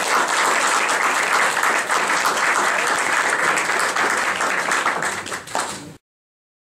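Audience applauding steadily, many hands clapping, then cut off suddenly near the end.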